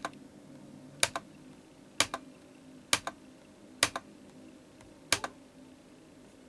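Computer mouse clicking six times, about once a second, each click a sharp press-and-release double tick, over a faint steady hum.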